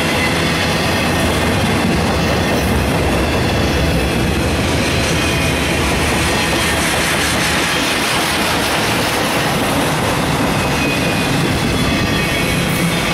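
Double-stack intermodal freight train's cars rolling past close by at speed: a steady, loud noise of steel wheels on the rails.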